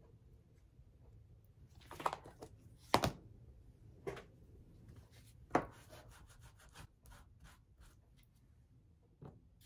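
Small craft supplies being handled and set down on a cutting mat: about five scattered taps and clacks, the loudest about three seconds in, with light rubbing and shuffling between them.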